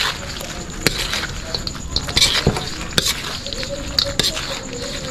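Utensil knocking and scraping against a pan as chicken pieces are stirred through a hot honey butter sauce, a dozen or so irregular sharp knocks over a steady sizzle.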